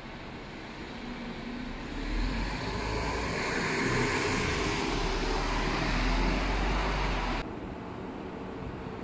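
Articulated Mercedes-Benz shuttle bus running close by, a deep engine rumble with a broad rushing noise. It grows louder about two seconds in, then cuts off suddenly a little after seven seconds, leaving a quieter steady background.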